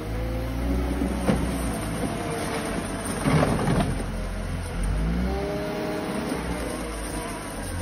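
Wheel loader's diesel engine running and revving up and down as the machine manoeuvres while clearing snow, with a louder, rougher rush of noise a little past three seconds in.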